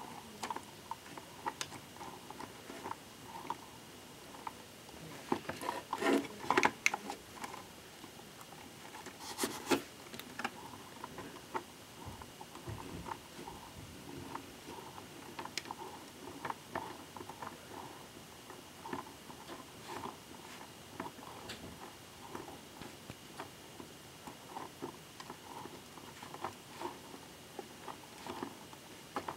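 Faint clicking and rattling of a hand-cranked Lego pump and its valve levers as the water-filled Lego hydraulic arm is worked, with louder plastic clatters about six and ten seconds in.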